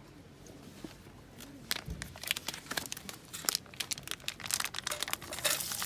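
A quick, irregular run of sharp crinkling, crackling clicks that grows busier, with a hiss like sizzling starting to rise at the very end.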